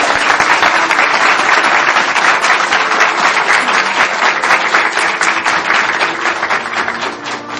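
An audience applauding: many people clapping at once. The applause starts suddenly and dies down near the end.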